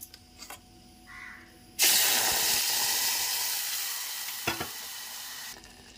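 Tomato puree sizzling in hot oil in a steel pot, starting suddenly about two seconds in and slowly dying down. A single knock sounds near the end.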